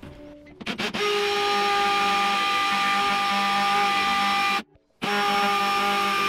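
Ryobi R18PDBL-0 18V ONE+ brushless hammer drill running steadily in hammer mode, its bit hammering into hard stone. The drill stops briefly about two-thirds of the way through and starts again at the same speed. The rock is so hard that the bit makes slow progress.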